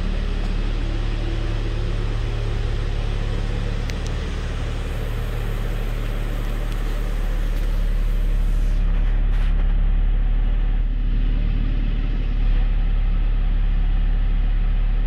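2011 BMW 335i's 3.0-litre turbocharged inline-six idling steadily. About halfway through it is heard from inside the cabin, where it sounds duller.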